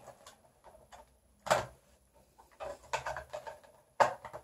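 Small objects being handled and set down on a hard surface: a few scattered knocks and clicks, the loudest about one and a half seconds in, a short cluster around three seconds, and a sharp click near the end.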